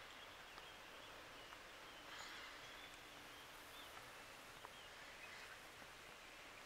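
Near silence: faint forest ambience, with a few faint short bird chirps near the middle.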